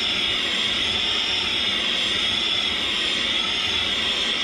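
Soldering torch burning with a steady, rushing hiss as the flame is swept back and forth over a fluxed metal piece to preheat it and boil the moisture out of the flux.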